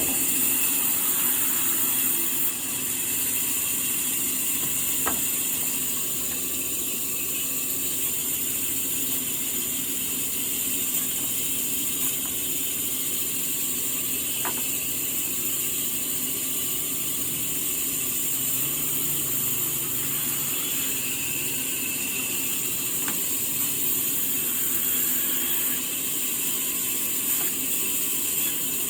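Sawmill saw running steadily, a constant high hiss with a few faint clicks along the way.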